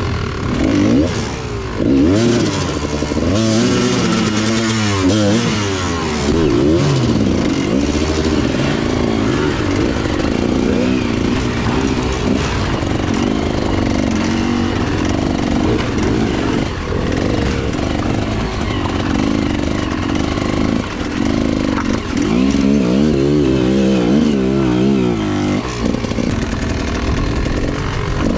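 Dirt bike engine revving up and down over and over, its pitch rising and falling with each blip of throttle, as the bike is ridden slowly over rocks and through shallow water.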